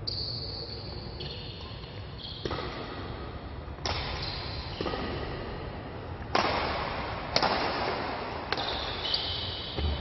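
Badminton rackets hitting a shuttlecock back and forth in a rally: sharp hits about once a second, each trailed by the hall's echo.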